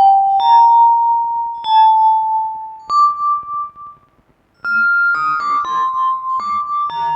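Yamaha PSR-36 keyboard playing a slow melody of held single notes through a Vivlex Time Maker delay pedal set to its Tube delay. The notes break off briefly about four seconds in, then a quicker run of notes follows.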